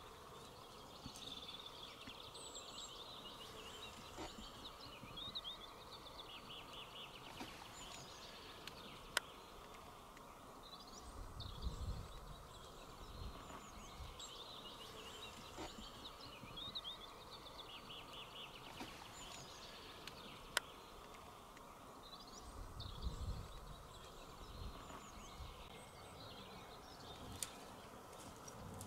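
Songbirds singing and calling in repeated short chirping trills over a faint steady background hiss. Two sharp clicks and two brief low rumbles break in.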